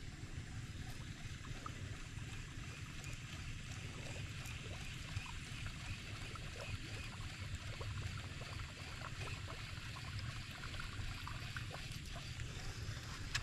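Wind buffeting an action camera's microphone as a steady low rumble, under an even hiss with faint, scattered small ticks.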